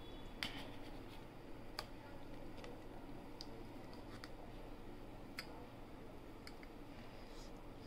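Light, irregular clicks of a metal spoon against a steel tin as a piece of set milk cake is pried loose and lifted out.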